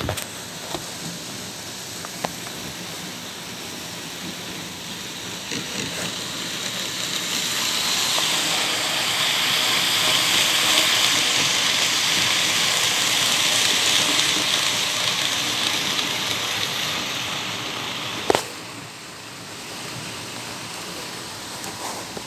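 N scale model freight train running on the track, its running noise growing louder as it passes close by and then fading away. A single sharp click comes about three-quarters of the way through.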